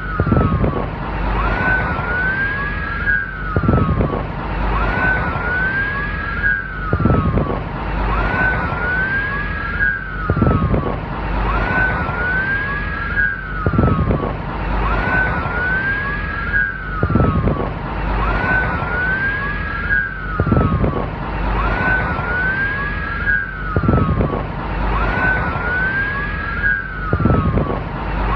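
Police siren wailing in a steady, repeating cycle: each sweep rises and falls between a high and a lower pitch about every three seconds, with a second overlapping sweep just behind it and a short low pulse once per cycle, over a constant noisy background.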